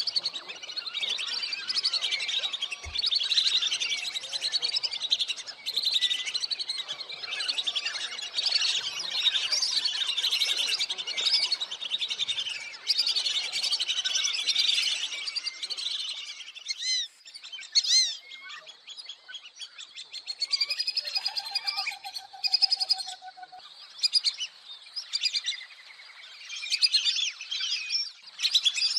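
Flock of lesser whistling ducks calling: a dense chorus of high whistled chirps that thins out after about sixteen seconds into sparser separate calls.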